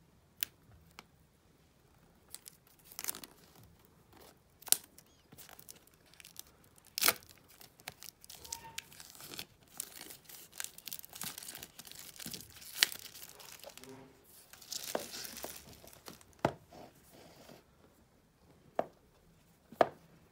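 Plastic wrap being torn and peeled off a cardboard Magic Mouse box, crinkling, with scattered sharp crackles and clicks. The tearing and crinkling is thickest in the middle, and a few sharp taps near the end.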